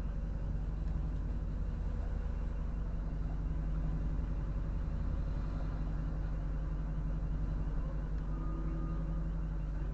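City bus engine running steadily, heard from inside the passenger cabin as an even low hum.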